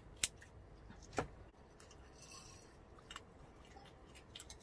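Scissors snip through grilled pork belly with a sharp click just after the start, then quiet eating sounds: faint chewing and small scattered clicks, with a brief falling squeak about a second in.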